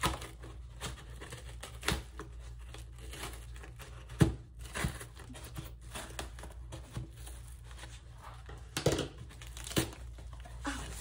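Kitchen scissors cutting and crunching through a corrugated cardboard box, with irregular sharp snips and cracks over a crinkling rustle; near the end the cardboard is torn apart by hand.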